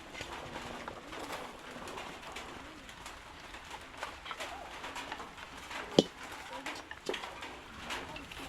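A bird cooing in low, wavering calls, with scattered small clicks and one sharp knock about six seconds in.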